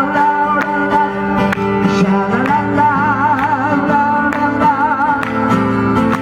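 Live solo acoustic guitar, strummed in a steady rhythm, under a held melody line that wavers in vibrato.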